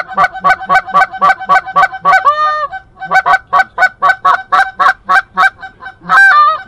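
Goose honking and clucking in a fast, steady run of about five notes a second, broken twice by a longer drawn-out honk.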